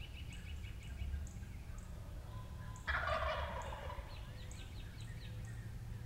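Wild turkey gobbler gobbling once, a loud rattling call that falls in pitch and lasts about a second, about three seconds in. A quick run of short high notes at the start and faint high chirps from small birds are heard around it.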